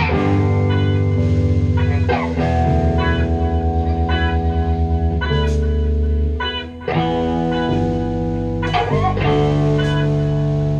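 Instrumental rock band playing live on electric guitars, bass and drums: guitars holding and changing chords over the drum kit, with cymbal hits. The music drops out briefly about six and a half seconds in, then comes back in together.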